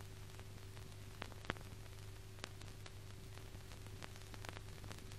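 Background noise of a 1942 film soundtrack: steady hiss and a low hum, with a few faint scattered clicks.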